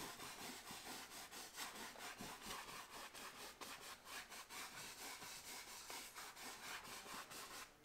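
A 2-inch paint brush scrubbing oil paint back and forth across a canvas wet with liquid white: a faint, quick, repeated swishing of bristles on canvas.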